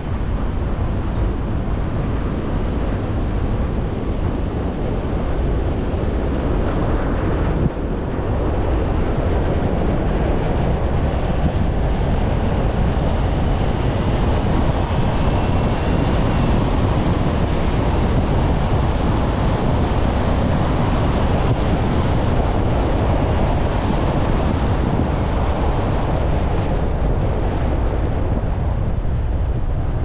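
Car driving along a road: steady road and wind noise with a deep rumble.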